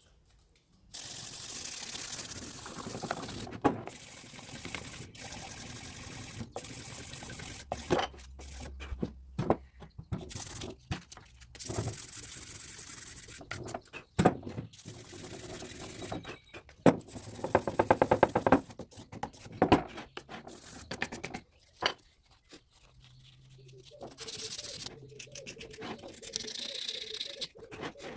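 Teak wood being hand-sanded with fine 400-grit sandpaper: a rough, hissing rub in strokes, broken by many sudden cuts.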